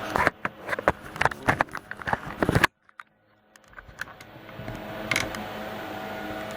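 A quick run of clicks, knocks and clatter of parts being handled and set down, cut off suddenly by about a second of silence, then a low steady hum with a few light clicks.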